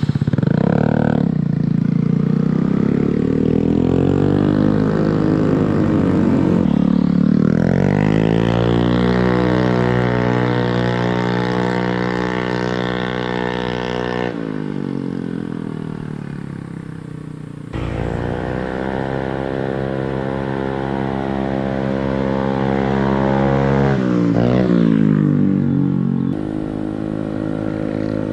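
Honda Beat scooter's single-cylinder engine through an aftermarket JRM full-system racing exhaust, revving and accelerating so the note climbs and then holds steady, several times over. Its level drops and jumps abruptly a few times.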